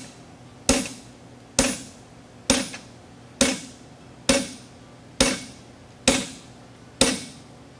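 A hammer strikes a handled fuller set into a red-hot steel draft horseshoe on an anvil, creasing the nail groove into the shoe. Eight even blows, about one every 0.9 seconds, each with a short metallic ring.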